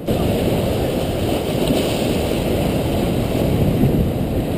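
Steady wind rumbling on the microphone over the wash of ocean waves breaking against jetty rocks.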